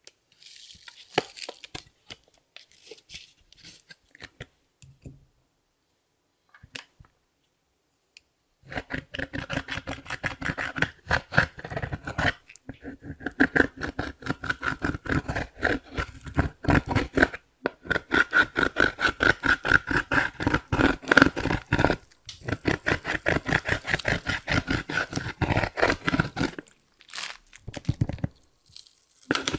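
Clear slime being kneaded and stretched by hand, giving sticky clicks, pops and squelches. A few scattered crackles at first, then from about nine seconds in a dense, rapid run of clicking with a few brief pauses, ending shortly before the close.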